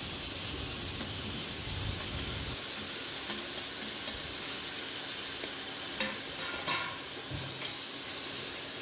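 Chopped tomatoes and vegetables sizzling in hot oil in a pressure cooker, stirred with a spoon, with a few light clicks of the spoon against the pot about six seconds in.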